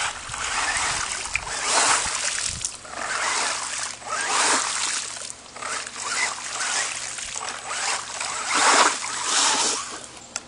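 Kyosho Rage VE electric RC truck's tyres churning through a muddy puddle, throwing up water in repeated splashing surges, roughly one a second.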